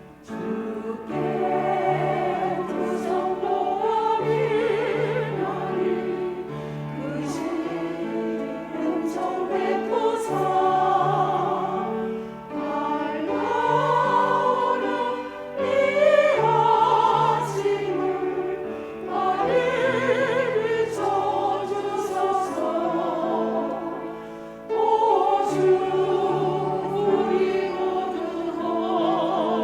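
Church choir singing a hymn in several voice parts over sustained instrumental accompaniment, in phrases a few seconds long.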